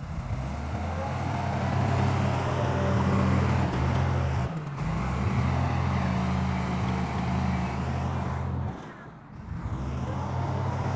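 Heavy diesel engine of earthmoving machinery running steadily at a low, even pitch, briefly dropping out about halfway through and dipping for about a second near the end.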